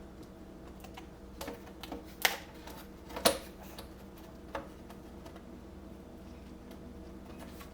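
A few light clicks and taps as a replacement LCD panel is set down into an HP EliteBook 740 G1's display lid and lined up. The two loudest come about two and three seconds in.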